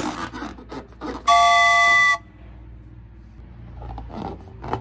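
A single steady horn honk lasting about a second, starting and stopping abruptly: a comic car-horn sound effect. A few soft rubs and clicks come just before it.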